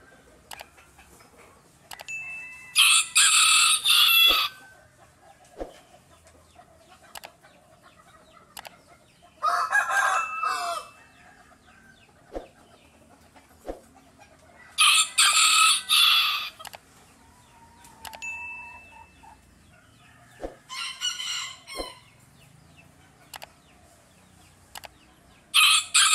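Rooster crowing about five times, a few seconds apart, each crow lasting one to two seconds.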